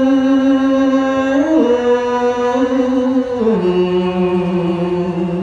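A man singing Smot, unaccompanied Khmer Buddhist chanted verse, solo into a microphone. He holds one long note that steps down in pitch about one and a half seconds in, then drops lower again about three and a half seconds in and holds there.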